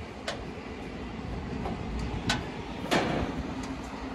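Three sharp metallic clicks and clanks, the loudest near the end, as a hand tool and fingers work on the steel panels of an LED display cabinet, over a steady low rumble.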